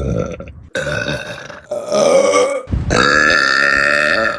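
Women burping, one clip after another: three short burps, then a long, steady burp of about a second and a half.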